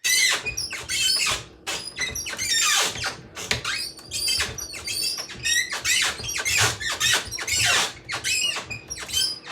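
Rapid run of short, high-pitched squeaks and squeals, many sliding up or down in pitch like little screams, made by small handheld objects being worked by hand.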